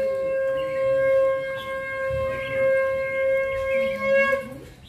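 A single long, steady horn-like note, blown and held at one pitch, wavering briefly before it stops near the end.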